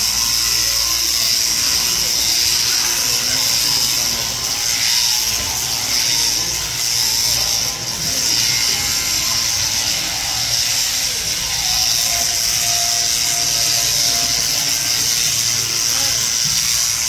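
Mechanical sheep-shearing handpiece, driven through a jointed drive rod, running steadily as it cuts through a sheep's fleece: a constant high whir over a low hum.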